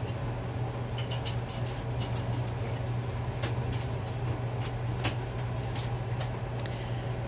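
Blue-and-gold macaw bathing in a water bowl: quick splashes and wing flutters as it dips and flaps its wet wings, a scatter of short sharp splashes from about a second in. A steady low hum runs underneath.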